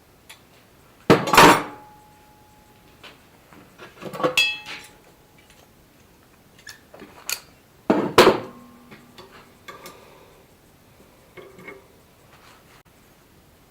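Steel pieces clanking against each other or a hard surface: three loud clanks about 1, 4 and 8 seconds in, each ringing briefly, with lighter metallic taps between.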